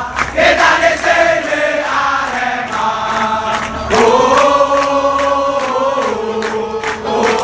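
A large crowd of football supporters singing a chant in unison, mostly men's voices holding long notes, over a regular beat; the singing grows louder and rises in pitch about four seconds in.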